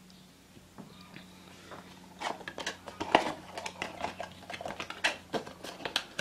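Cardboard perfume box being handled, with a few faint taps at first. From about two seconds in comes a quick run of crisp clicks and scrapes. A steady low hum runs underneath.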